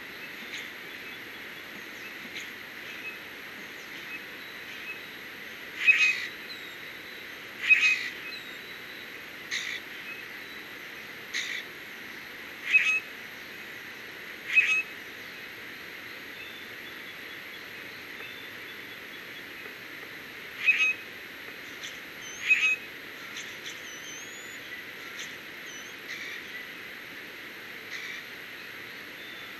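A bird giving short, loud calls about every two seconds: six in a row, then two more after a pause. Faint songbird chirps sound in the background.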